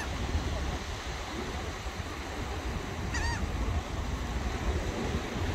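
Steady wind and surf noise, with wind rumbling low on the microphone. About three seconds in, a bird gives one short call.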